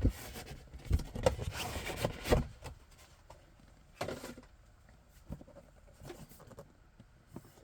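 Cardboard box and packaging being handled and opened by hand: rustling and scraping with a few knocks, busiest in the first two and a half seconds and again about four seconds in.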